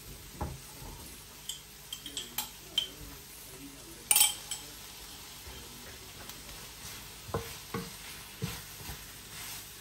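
Broccoli frying in a pan with a faint steady sizzle, while a wooden spatula scrapes and knocks against the pan in irregular strokes. About four seconds in there is a short loud burst as a little water is poured from a jar into the hot pan.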